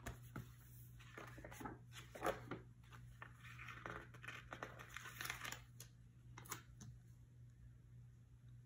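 Faint paper handling: sticker-book pages rustling, a paper sticker peeled off its backing sheet and pressed onto a planner page, in short scattered rustles and taps over a steady low hum.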